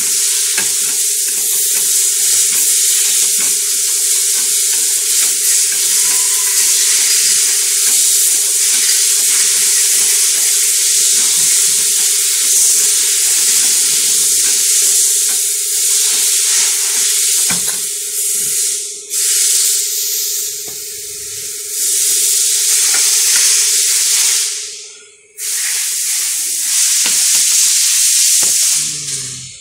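Shop press running with a loud, steady hiss and a steady hum under it as its ram presses a worn rear wheel bearing out of a brake-drum hub. The hiss breaks off briefly twice and stops near the end as the bearing comes free.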